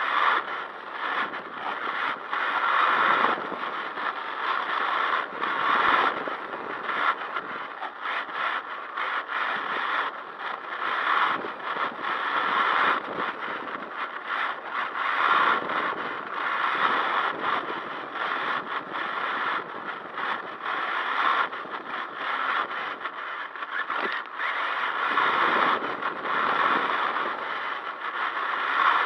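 Onboard sound of an HPI WR8 Flux brushless electric 1/8-scale RC rally car being driven: coarse, crackly scraping noise from the tyres and drivetrain that swells every few seconds as the car accelerates.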